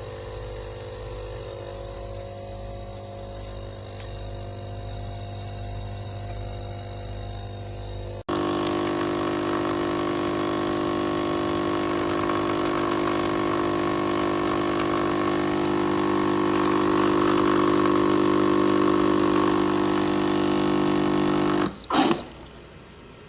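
HiBREW capsule coffee machine's pump buzzing steadily while it brews. The hum steps up louder about eight seconds in, then cuts off near the end with a short clunk.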